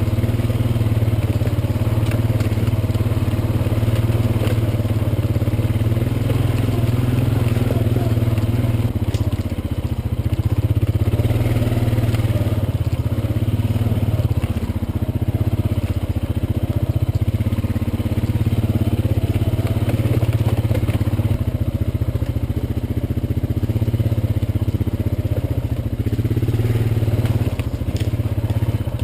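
A vehicle engine running steadily under way, with a strong low hum whose pitch and level sway slightly as it travels.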